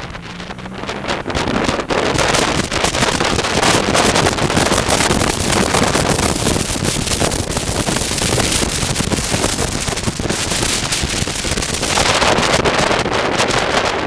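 Wind buffeting the microphone of a helmet camera on a moving motorcycle, with the motorcycle's engine running underneath. The wind noise grows louder about two seconds in as the bike picks up speed.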